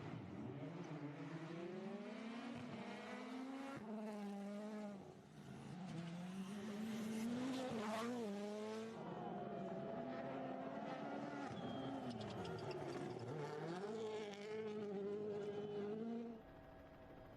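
Rally car engine at high revs, its pitch climbing and dropping again and again as the driver shifts gears and lifts off the throttle. It cuts off abruptly about a second before the end.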